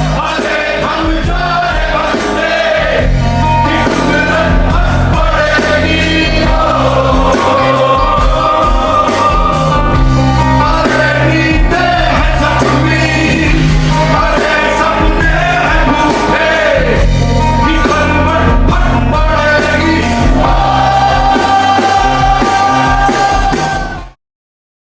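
Rock band music with singing, loud and steady, stopping abruptly near the end.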